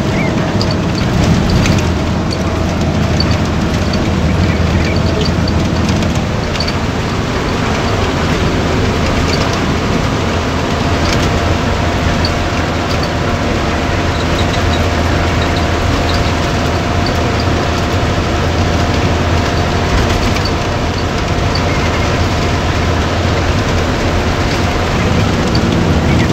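Engine and road noise inside a moving bus: a steady low drone under an even rush of tyres and wind, with faint clicks and rattles now and then.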